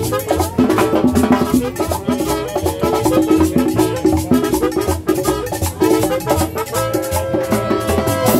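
Live band playing Latin dance music: conga drums and percussion keep a steady beat over a bass line, and a trumpet holds long notes near the end.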